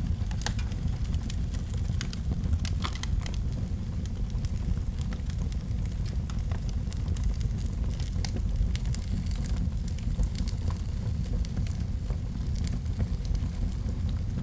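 Large fire burning: a steady low rumble of flames with frequent sharp crackles and pops scattered throughout.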